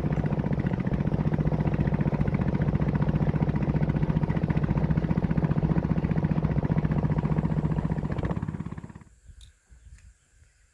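Small boat motor running steadily with a fast, even beat, then cutting off about nine seconds in.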